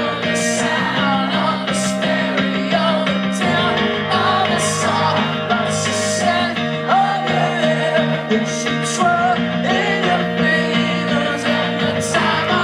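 Live acoustic guitar song: a strummed acoustic guitar and singing, with steady rhythmic strokes and a chord change about three and a half seconds in.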